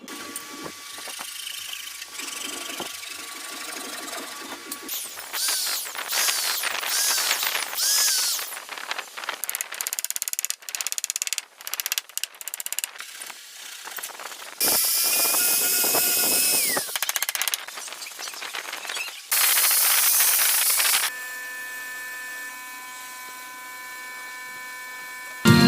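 Woodworking power tools running in a series of short separate bursts, starting and stopping every second or two.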